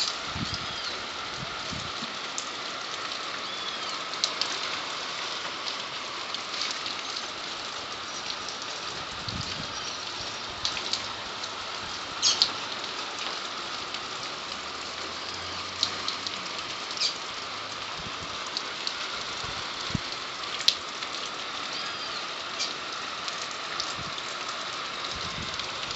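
Steady rain falling, with scattered sharper drops tapping on a surface, the loudest about halfway through and again near the end.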